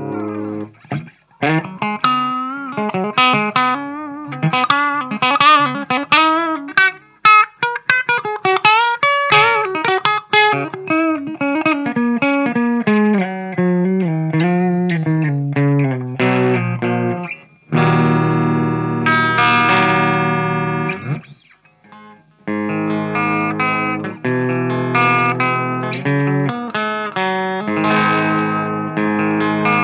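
Kramer Baretta Special electric guitar played clean through an EVH 5150 EL34 50-watt amp: single-note lines with bends and vibrato, then ringing chords and rhythmic chord playing after a brief pause about 22 seconds in.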